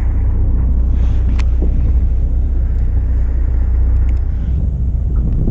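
Steady low rumble of the fishing boat's engine running, with a couple of faint clicks.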